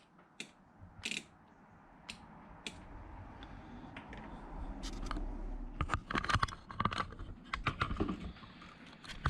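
Automotive relay clicking on and off as its negative trigger is touched and released: sharp separate clicks, few at first and coming thick and fast in the last few seconds. A low rumble builds under them from about three seconds in.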